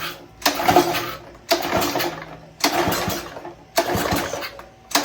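Small gasoline engine on a pressure washer being pull-started with its recoil cord, cranking over about once a second, five pulls, without catching. The choke is out and carb cleaner has been sprayed into the intake, and the engine still fails to start, which points to stale fuel.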